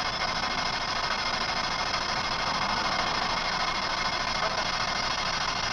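Radio static: a steady, even hiss from a radio used as a ghost box, with no voice coming through.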